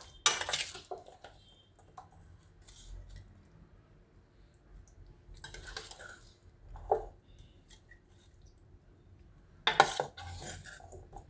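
A spoon scraping and clinking against a stainless steel bowl in short, scattered bursts as the carrot salad is served out, with the loudest just after the start and again near the end.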